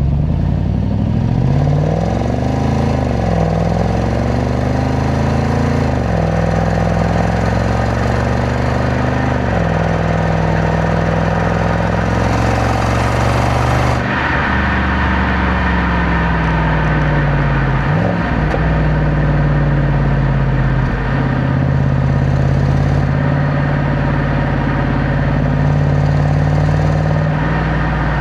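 Jaguar XFR's supercharged 5.0-litre AJ133 V8 on its stock exhaust, being revved: the engine note climbs and drops back three times, then holds at a steady raised pitch with a couple of brief dips.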